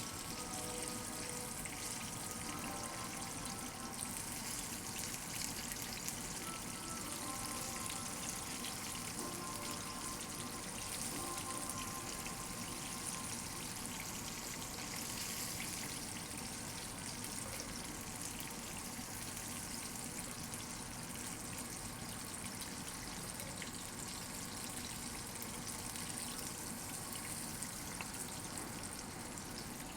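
Chicken frying in hot oil, a steady sizzle with fine crackling throughout, with quiet music underneath.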